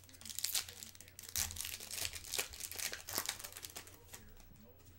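Silver foil wrapper of a Bowman Chrome trading-card pack being torn open and crinkled in the hands, a dense crackle lasting about three and a half seconds that dies down near the end.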